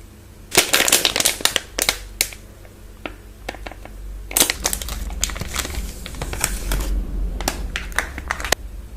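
Chocolate bar wrappers crinkling close up as they are handled, in three bouts of dense crackling.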